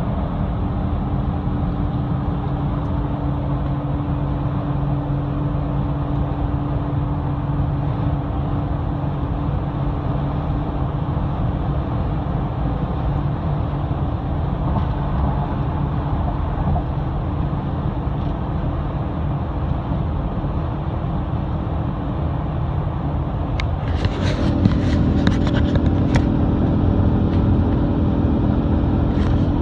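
2000 Toyota 4Runner making a steady hum over a low vehicle noise. About 24 seconds in, the hum steps slightly higher in pitch and grows louder, with a few brief clicks.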